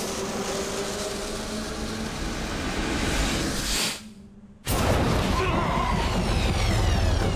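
Film sound mix of score and podracer engine effects. It nearly cuts out for about half a second around four seconds in, then comes back with a low engine rumble and falling whooshes as the podracer speeds through the tunnel.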